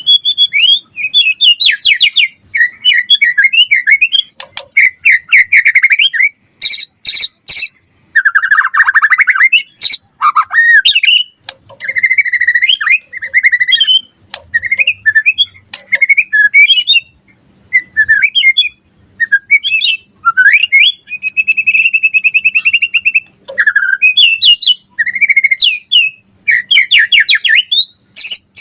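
White-rumped shama singing loud, fast, varied song: rapid whistled phrases, trills and sharp chattering notes, one after another with only brief pauses.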